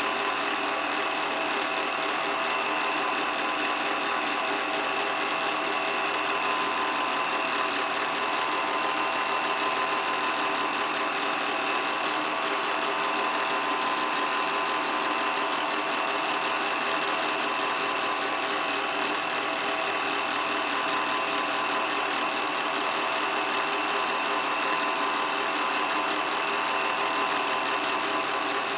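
8mm film projector running, a steady mechanical whirr and clatter with a constant whine.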